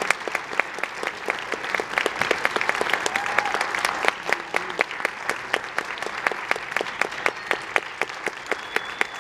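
Audience applauding: many hands clapping together, with individual claps close by standing out sharply.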